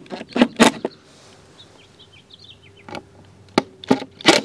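Cordless impact driver run in short bursts, driving screws through metal pipe straps into a plywood board: a quick cluster of bursts at the start, a pause, then several more from about three seconds in. Faint bird chirps in the pause.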